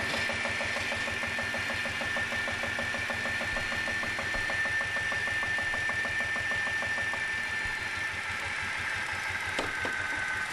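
Circular saw bench driven by a small stationary engine: the engine runs with a rapid, regular beat under the saw blade's steady high whine. The whine drops slightly in pitch near the end, and there is a sharp click about nine and a half seconds in.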